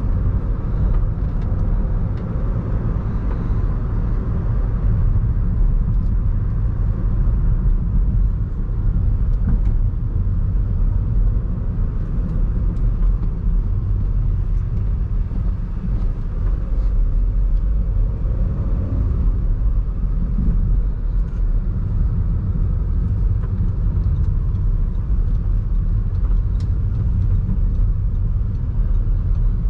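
Audi A1 1.6 TDI four-cylinder diesel running under way, with tyre and road noise: a steady low rumble.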